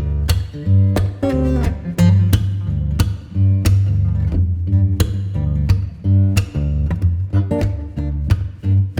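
Background music: acoustic guitar plucking and strumming over a steady bass line with a regular beat.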